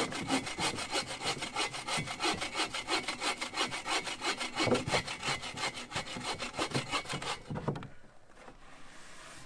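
A small handsaw cutting through a dead, weathered log in quick, even back-and-forth strokes. The sawing stops about seven and a half seconds in.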